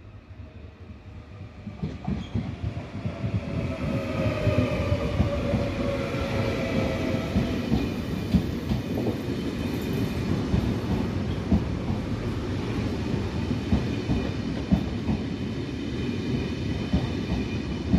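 Trenitalia ETR 700 Frecciargento electric high-speed trainset running in alongside the platform. The rumble of wheels on rail grows over the first few seconds into a steady loud rumble, with a falling whine and many sharp clicks of wheels over rail joints as the cars go by.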